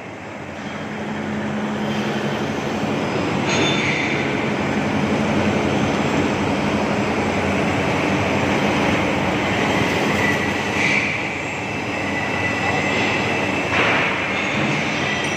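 DY-80CNC chamfering machine cutting a bevel on a metal workpiece: a steady grinding noise of the cutter in the metal, growing louder over the first second or two, with a high metallic squeal that comes and goes.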